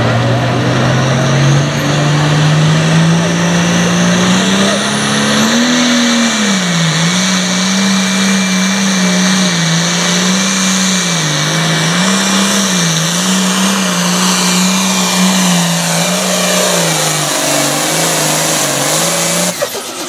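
Turbocharged diesel engine of a John Deere Super Farm class pulling tractor working under full load as it drags the weight-transfer sled. The revs climb over the first several seconds, then waver up and down about once every second and a half. The sound cuts off abruptly near the end.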